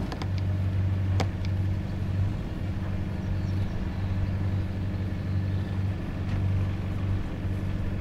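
Sailing yacht's inboard engine idling with a steady low hum, while the boat casts off. A single sharp click sounds about a second in.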